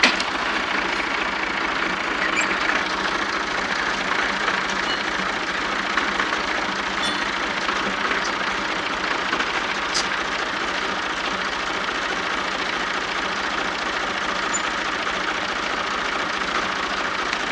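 Massey Ferguson 35 tractor engine running steadily at an even, unchanging speed.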